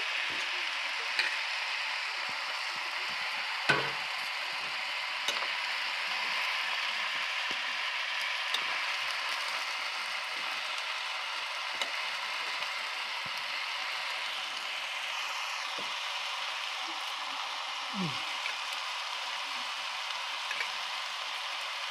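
Cauliflower and banana flower frying in hot oil in a steel karahi, with a steady sizzle. A few sharp clicks come from a spatula striking the pan as the vegetables are stirred.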